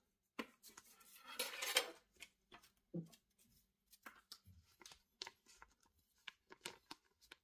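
Plastic zip-lock bag of soft lures crinkling as it is handled, then light scattered clicks and taps as a steel ruler is picked up and brought to the bag.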